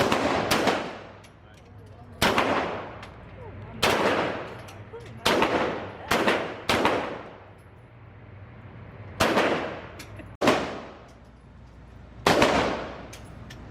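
Gunfire on a shooting range: about ten single firearm shots at irregular intervals, some coming in quick pairs, each with a long echoing decay.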